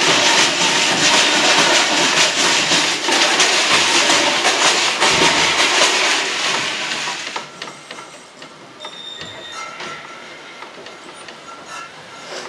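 Loud, dense rattling and hissing clatter of stage noise that cuts off suddenly about seven and a half seconds in, leaving quieter scattered clinks and short high ringing tones.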